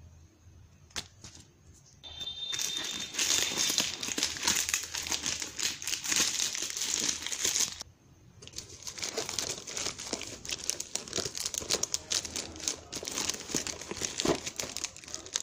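Plastic courier mailer bag and wrap being torn open and crinkled by hand. A couple of seconds in, a dense crackling rustle starts, breaks off briefly about eight seconds in, then resumes and thins out.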